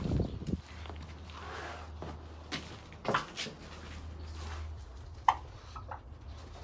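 Light knocks, rattles and rustling as a wire-mesh pen and a straw nest box are handled, with a sharper click a little after five seconds. A low steady hum runs underneath and stops about five seconds in.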